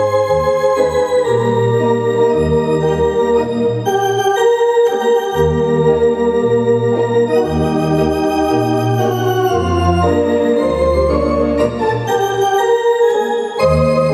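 Allen GW4 digital theatre organ played as a solo: sustained chords and a melody over bass notes that change about once a second.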